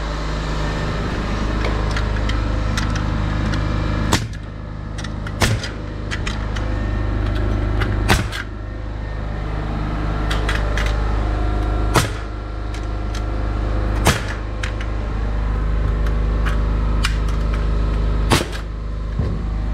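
Pneumatic framing nailer driving nails into wooden floor joists: six loud sharp shots a few seconds apart, with lighter clicks between them, over a steady low hum.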